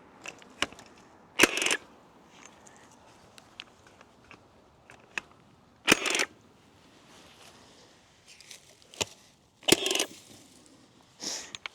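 Milwaukee cordless fence stapler firing 9-gauge staples into wooden fence posts: three loud sharp shots a few seconds apart, each with a brief rush after it, and a weaker one near the end, with small clicks in between.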